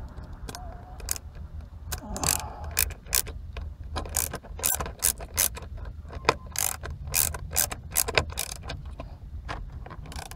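Screwdriver turning a self-tapping screw into the steering wheel's metal frame: sharp, irregular metal clicks, several a second at times, over a low steady hum.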